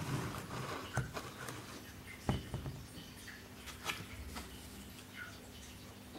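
H0-scale model trains running on a layout: a faint whirring hum that fades after about a second, with a few sharp clicks.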